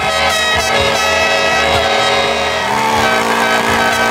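A race crowd cheering while air horns blare, several held horn tones sounding at once, with a new horn blast starting about two-thirds of the way in.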